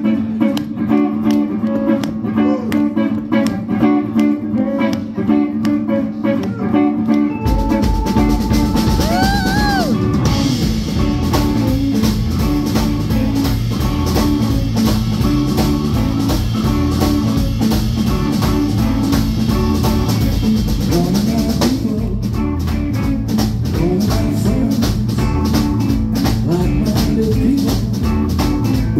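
Live rock band playing, led by an electric guitar. The opening is guitar over a sparse backing. Bass and drums come in fully a little over seven seconds in, and the cymbals drop back about three-quarters of the way through.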